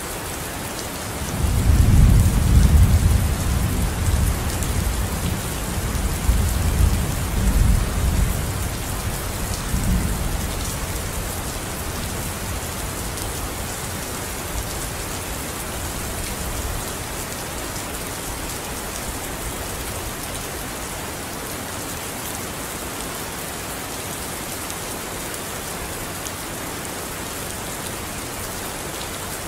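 Steady rain hissing, with a low rumble of thunder coming in about a second and a half in, loudest at first, swelling again a few times and dying away by about eleven seconds.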